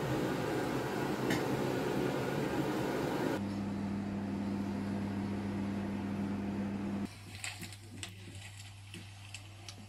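Steady rushing kitchen noise while a pancake fries in a pan on the hob. It cuts off abruptly to a steady low electrical hum, and about seven seconds in gives way to light clicks and taps of a metal spoon and dishes on a table.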